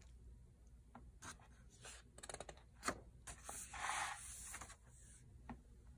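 A hardcover picture book's page being turned and smoothed flat by hand: quiet paper rustling with a few light taps, and a soft swish of a hand sliding over the paper about four seconds in.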